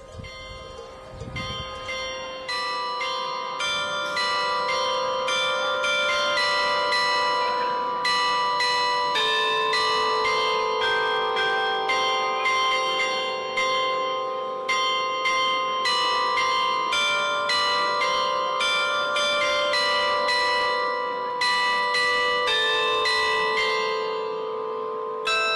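Clock carillon of tuned bells playing a tune, struck notes at a few a second and ringing on. It fades in over the first few seconds.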